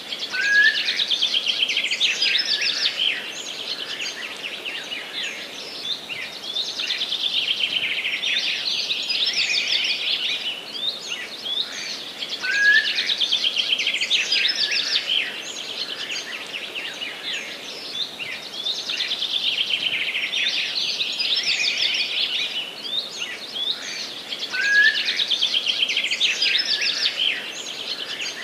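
Songbirds singing in a forest: long, fast trilled songs overlapping one another, each cycle opening with a short rising chirp, over a faint steady hiss. The same sequence comes round about every twelve seconds.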